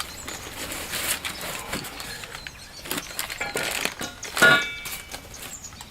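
Cardboard box and packaging rustling and clicking as parts are handled and lifted out, with a short squeak about four and a half seconds in.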